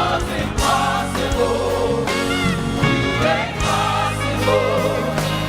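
Live gospel praise music: a choir and congregation singing over a band, with the sung lines held and bending in pitch.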